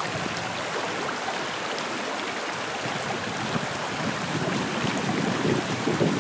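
Water flowing with a steady rushing sound, swelling a little in the low range about two-thirds of the way through.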